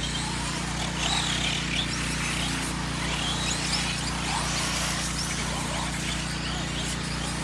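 Several electric 4x4 RC short course trucks racing, their motors giving short whines that rise and fall in pitch as they speed up and slow down. A steady low hum runs underneath.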